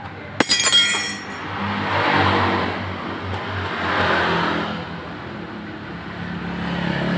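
Loose metal parts clink and rattle sharply about half a second in. Then motor vehicles pass by, their sound swelling and fading twice.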